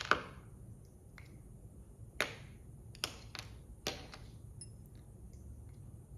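A series of sharp, separate clicks and taps, about six, the loudest right at the start: a steel screwdriver knocking against a tool magnetizer-demagnetizer block as it is pushed through and pulled out.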